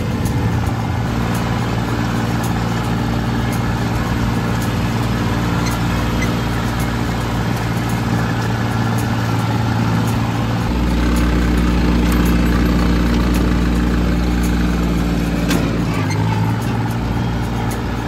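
John Deere 750 compact tractor's three-cylinder diesel engine running steadily under load while mowing. From about ten seconds in, its note goes deeper and a little louder, and it returns to the earlier note about sixteen seconds in.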